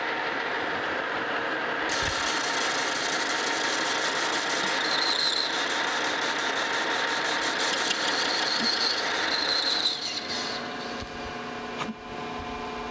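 Metal lathe running while a carbide-insert tool takes a light finishing facing cut, about four or five thousandths, across a brazed cast-iron casting, giving a steady cutting hiss. The cutting noise drops away about ten seconds in and the machine sound gets quieter.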